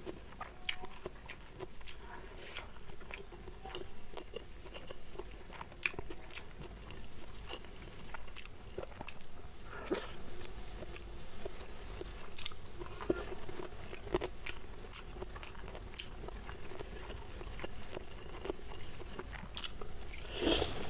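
Close-miked chewing with scattered small wet mouth clicks, then a crunchy bite into crispy fried chicken near the end.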